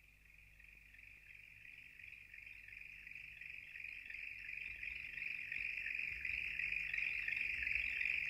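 High, steady chirring of a night chorus, fading in slowly from silence and growing steadily louder.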